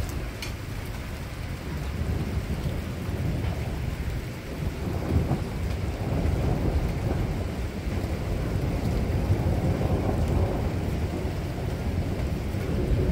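Thunder rolling continuously, a long low rumble that swells about five seconds in and keeps going.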